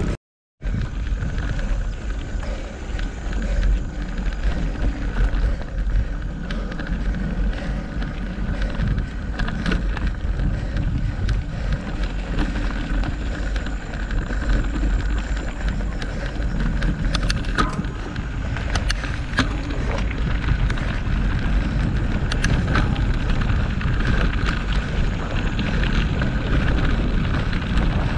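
Wind rushing over the microphone of a camera riding along on a moving mountain bike, with the bike rattling and a run of sharp clicks from the bike over rough ground part-way through.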